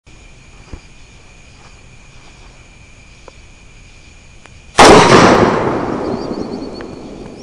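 A single .308 rifle shot about five seconds in: a sharp crack followed by a long rolling echo that fades over a couple of seconds. A faint steady high-pitched whine runs underneath.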